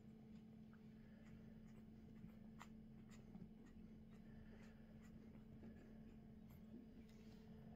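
Near silence: a faint steady hum of room tone with scattered soft clicks and ticks.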